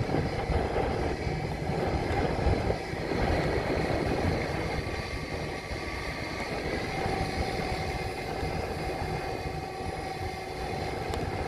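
Blade 500X electric RC helicopter hovering, its motor and rotors giving a steady whine, with heavy gusty wind buffeting the microphone.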